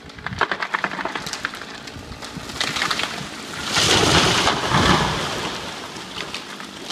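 A fire-killed tree being felled: wood cracking and snapping as it tips over, then a loud crash as the trunk hits the ground about four seconds in, fading away.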